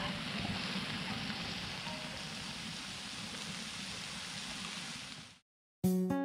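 Pan of scrambled eggs, bacon and sausages with melted cheese sizzling as it is stirred, a steady hiss. It cuts off abruptly near the end, and acoustic guitar music starts.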